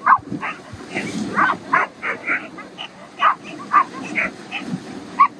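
Harnessed sled dogs barking and yipping, many short barks in quick irregular succession from several dogs.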